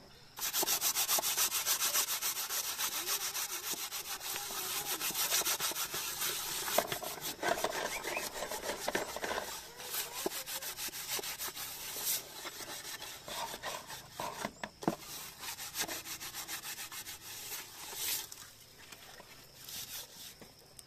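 Rapid, rhythmic hand scraping or rubbing, many strokes a second: fast and even at first, then slower and more irregular, fading out near the end.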